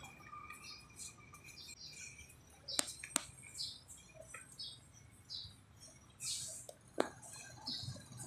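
A child's sneakers scuffing and shuffling on a tiled pavement during boxing footwork drills: a run of short scrapes, with three sharp taps, two close together about three seconds in and one near the end.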